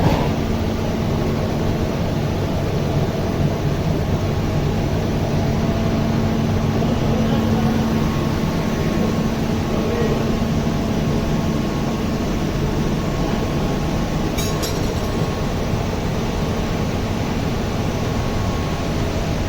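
Chilled-water pump with its electric motor running steadily, a continuous mechanical hum, with a brief metallic clink about two-thirds of the way through.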